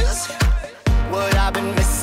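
Background music with a steady kick-drum beat, a little over two beats a second, and a gliding melody over it. There is a short break just before one second in, then the beat comes back.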